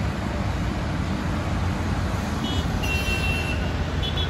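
Steady rumble of city road traffic, with a few short high-pitched horn toots about two and a half, three and four seconds in.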